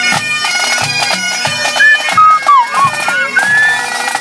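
Highland pipe band playing on the march: bagpipes sounding a melody over their steady drones, with bass and snare drum strokes about twice a second. About halfway through come a few loud sliding high notes.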